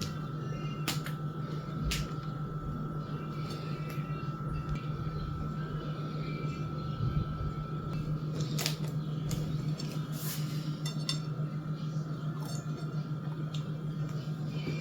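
Glass and dishes clinking and knocking now and then, several in quick succession about two-thirds of the way through, over a steady low hum.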